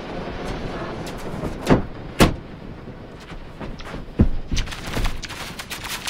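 Handling noise from a camera being moved about: rubbing and scraping with several sharp knocks, the loudest about two seconds in and again about four seconds in, among smaller clicks.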